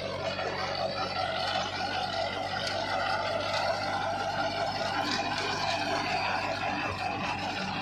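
Tractor's diesel engine running steadily under load, driving a three-row rotary inter-row weeder whose rotors are tilling the soil.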